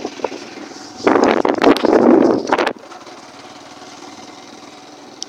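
Grass stems rustling and scraping against the phone's microphone: a loud crackling rush for about two seconds that cuts off suddenly, followed by a faint steady hum.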